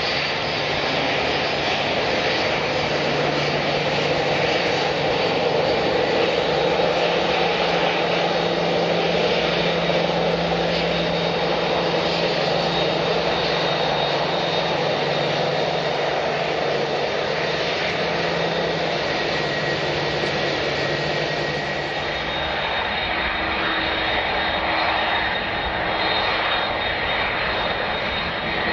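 Airliner engines running with a steady rushing noise and a few held whining tones. About three-quarters of the way through, a low tone drops out and a slightly higher one takes its place.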